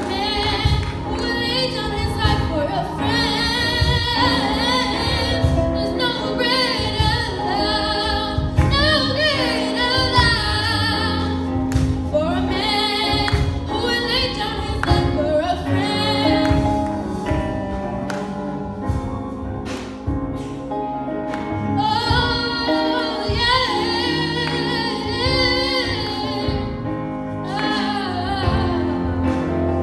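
Gospel song sung by female voices over instrumental backing with a steady beat.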